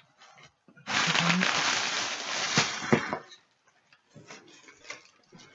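Packaging rustling and crinkling for about two seconds as plastic model kit boxes are handled, with a few sharp clicks near the end.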